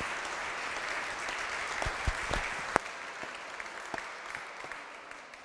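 Audience applauding, the clapping dying away near the end, with a few sharp knocks about two to three seconds in.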